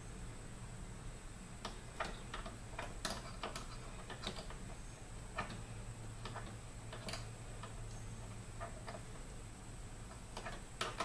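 Light, irregular metallic clicks and taps from a socket wrench being worked by hand onto a hard-to-reach 10 mm bolt in an engine bay.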